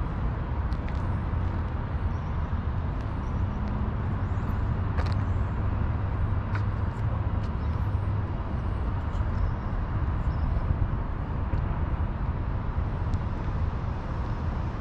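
Outdoor urban ambience: a steady low rumble of distant road traffic, with a few faint clicks.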